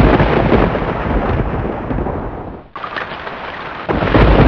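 Downloaded thunderstorm sound effect: steady rain hiss under a deep rolling thunder rumble. It drops away briefly a little under three seconds in, then a second loud rumble comes in near the end.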